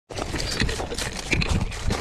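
A dog's paws crunching over loose gravel, heard close up through a camera clipped to its collar, with irregular clicks and rubbing of the collar against the microphone.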